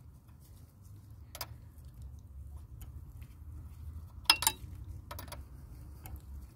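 Open-end wrench clinking on the steel fuel line nut at the fuel pressure regulator as the nut is worked loose: a few scattered metallic clicks, the loudest a quick double clink a little over four seconds in.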